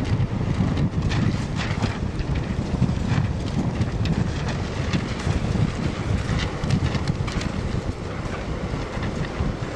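Sea wind buffeting the microphone in a steady, gusty rumble, over the wash of small waves breaking on the beach, with scattered short crackles.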